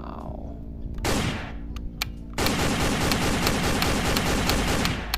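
Toy gun's electronic machine-gun sound effect: a short whoosh, two clicks, then a long burst of rapid fire from about two and a half seconds in.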